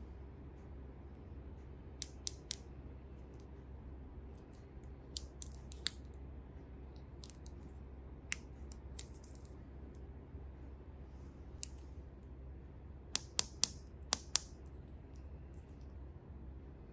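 Short, sharp clicks and snips of toy packaging and small plastic parts being handled during an unboxing. They come in small clusters: three about two seconds in, scattered single ones, then a quick run of five near the end, over a faint steady low hum.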